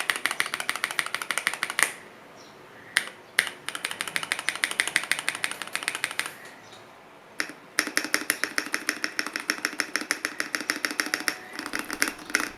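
Fast typing on an Akko MOD007 v1 gasket-mounted aluminium mechanical keyboard with an FR4 plate, Akko CS Matcha switches, Keychron ABS keycaps and no foam: rapid runs of key clacks, with two short pauses.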